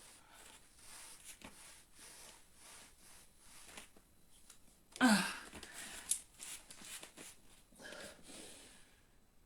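A person breathing with exertion while moving into an exercise position on the floor, with one loud, breathy voiced exhale about five seconds in and faint rustling and small clicks of movement around it.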